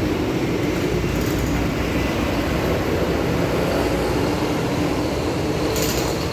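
Heavy engine running steadily with a continuous low rumble, typical of road-works machinery.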